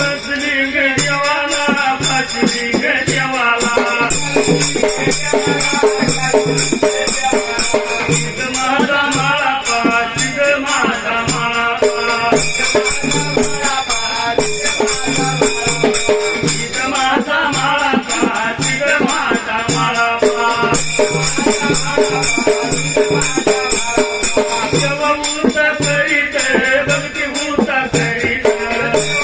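Marathi Dhangari ovi folk music without words: fast shaking, jingling percussion over a low beat about once a second, with a melodic line rising and falling over it.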